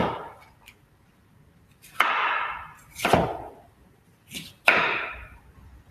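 Chef's knife dicing raw potatoes on a wooden chopping board: about five separate chops, each a sudden knock of the blade through the potato into the wood, spaced roughly a second apart.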